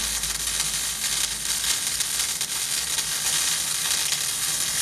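MIG welding arc running steadily as the wire feeds into a fillet weld, set hot with the amperage and wire speed turned up.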